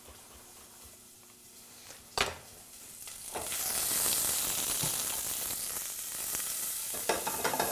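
Shallots sizzling in olive oil in a hot saucepan, the sizzle swelling up loud about three seconds in as the pan is handled on the gas burner. A single sharp knock comes a little after two seconds.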